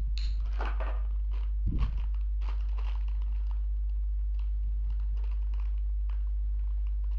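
Clear plastic bag crinkling and rustling as it is handled, irregular crackles that are busiest in the first half, with a soft knock a little under two seconds in. A steady low hum runs underneath.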